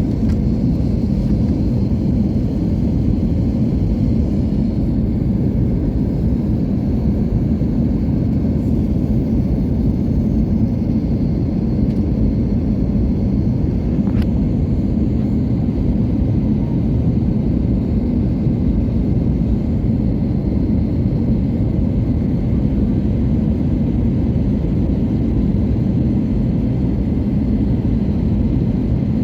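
Passenger airliner landing: a steady low rumble of engines and airflow, with a faint high whine throughout and a single brief tick about fourteen seconds in.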